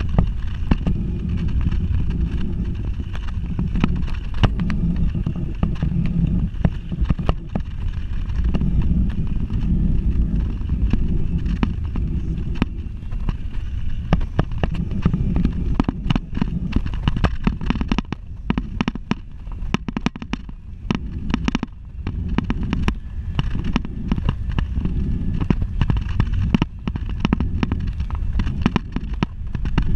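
Wind buffeting on a bicycle-mounted action camera's microphone while riding: a steady low rumble, broken by frequent sharp clicks and knocks from the bike on the road.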